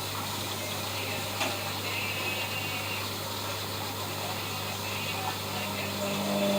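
ELIN WA 14 M washing machine running: a steady hum under a hiss of water, with a single click about a second and a half in. Near the end a second, higher motor hum comes in.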